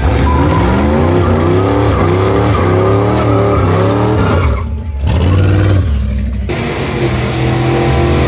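Vintage hot rod pickup's engine revving hard as it accelerates, its pitch climbing in a string of rising sweeps. About four and a half seconds in it backs off, then runs on at a steadier, lower note.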